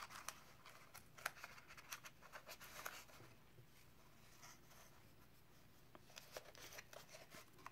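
Faint rustling and light clicks of a cardboard toilet-paper tube being handled and its ends folded in, mostly in the first three seconds and again near the end.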